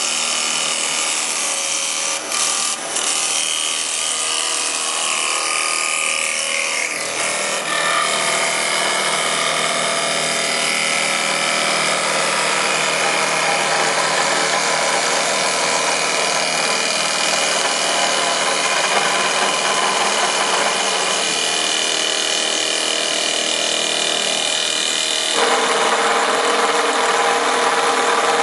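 Automatic CNC wood lathe cutting a spinning wooden blank: a steady, loud machining noise of the cutter in the wood. The tone shifts about a quarter of the way in, and near the end it becomes louder and brighter.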